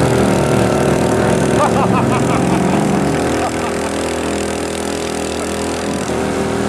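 Ride-on lawn mower engines running, their pitch shifting up and down over the first few seconds and then holding steadier.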